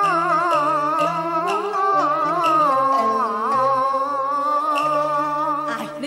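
A woman singing a long, wavering melismatic vowel in Cantonese opera style, the pitch sliding and bending, over instrumental accompaniment with steady low bass notes.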